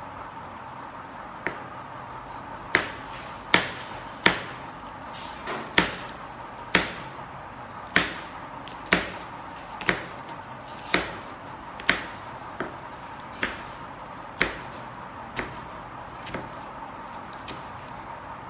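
Chef's knife slicing a green chili into rings on a plastic cutting board: a sharp knock of the blade on the board about once a second, loudest in the middle of the run.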